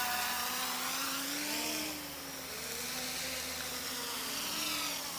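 A small electric quadcopter's motors and propellers buzz in flight, the pitch rising and falling with throttle. It gets quieter about two seconds in as the drone moves farther off.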